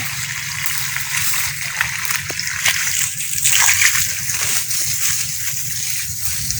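Water from a 1-inch garden hose spraying and splashing onto vegetable plants, a steady rushing hiss broken by irregular splatters, with a steady low rumble underneath.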